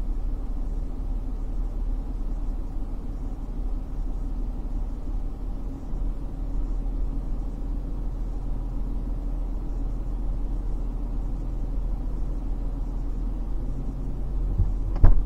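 Vehicle engine idling steadily with a low hum, and a short thump near the end.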